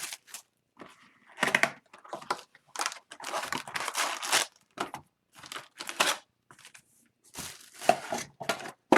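Packaging of a sealed retail box of hockey card packs being torn open: wrapper and cardboard crinkling and tearing in irregular bursts.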